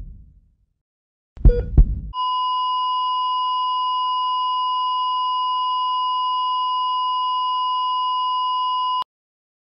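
Heart monitor flatline sound effect: one long, steady, high beep lasting about seven seconds that cuts off suddenly, the signal of a patient's death. A short, loud double thud comes just before the tone starts.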